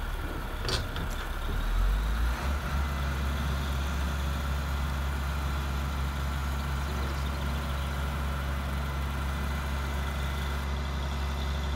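Low diesel truck engine sound, as played by an RC model's sound unit, idling steadily, with a single sharp click about a second in.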